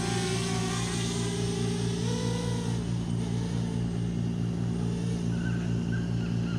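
Camera drone's motors and propellers humming steadily in flight, the pitch rising and falling a little as it flies out over the water.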